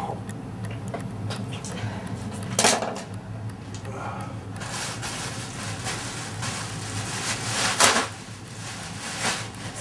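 Clinks and scrapes of objects being handled, with two louder sharp noisy bursts about three seconds in and near the end, over a steady low hum.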